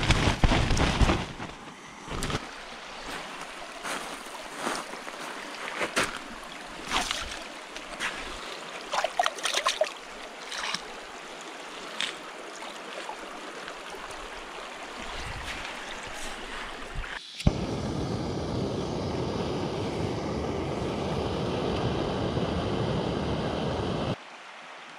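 A stream running steadily, with scattered sharp knocks and clatter over it. About seventeen seconds in it gives way suddenly to a louder, steady rushing noise, which cuts off abruptly near the end.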